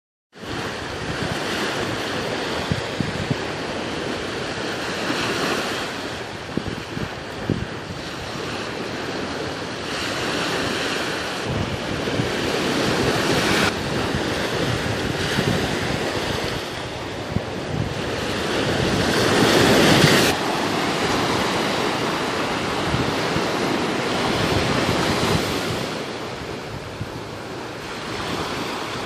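Ocean waves breaking and washing on the shore, a continuous surf rush that swells and eases, loudest about two-thirds of the way through, with wind buffeting the microphone.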